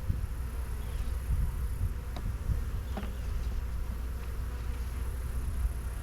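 Honeybees buzzing steadily around an opened hive, with a few brief passes or buzzes standing out about two and three seconds in.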